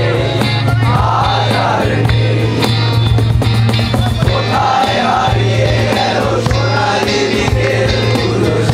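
A group of young men singing together to strummed acoustic guitars, kept in time by a cajón beat, with a steady low hum underneath.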